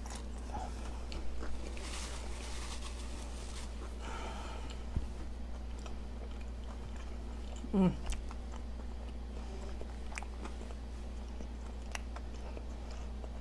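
Close-up chewing and biting of a crunchy homemade bacon cheeseburger, with soft crunching clicks over a steady low hum. About eight seconds in there is a short falling vocal sound from the eater.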